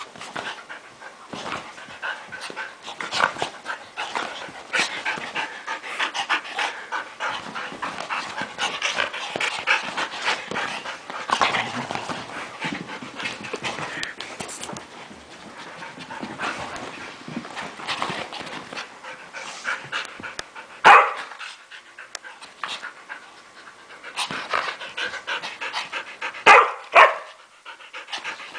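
Two dogs, a Maltese and a Samoyed, playing: panting and scuffling noises throughout. A few short, loud sounds stand out, one about two-thirds of the way through and a cluster near the end.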